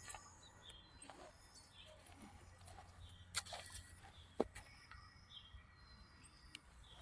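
Near-quiet stretch with a few faint, scattered clicks and knocks, the sharpest about three and a half and four and a half seconds in.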